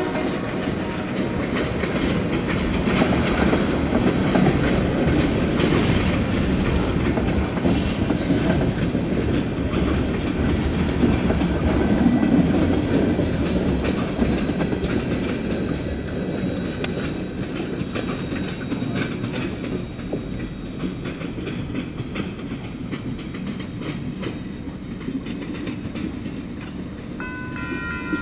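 Tank cars of a freight train rolling past on jointed rail with a rumble and clickety-clack, fading slowly as the train pulls away. Near the end a locomotive horn sounds, a steady chord of tones.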